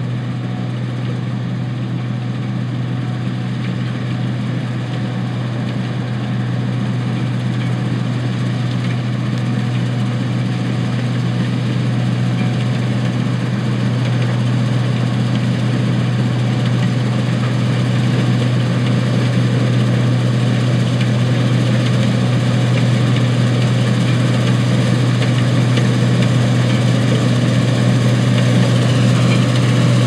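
Case International 1680 Axial-Flow combine harvesting soybeans: a steady, deep diesel engine drone under a broad mechanical rush, growing gradually louder as the machine comes closer.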